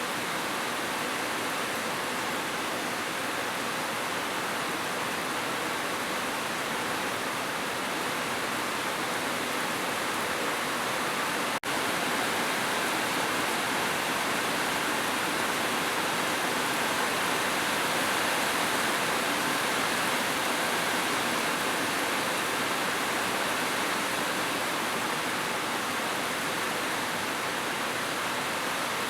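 Steady rushing water, an even unbroken hiss, with a momentary dip about twelve seconds in.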